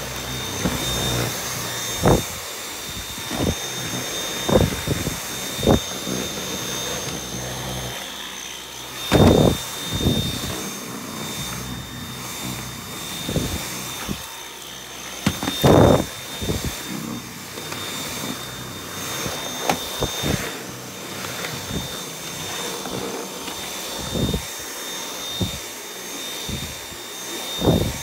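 Dyson V8 Absolute cordless stick vacuum running steadily on low power with a high motor whine. Frequent short knocks and thumps come through as the wand and tool bump along surfaces, the loudest about nine and sixteen seconds in.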